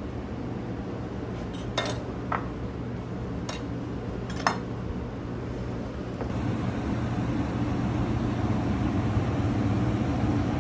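Dishes and a glass bowl clinking a few times as they are handled on the kitchen counter, four short sharp clinks over a steady low hum. About six seconds in, the clinks stop and the steady background noise gets louder.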